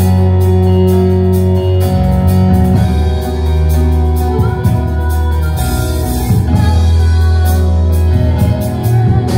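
Worship band music with keyboard, guitar and drums keeping a steady beat.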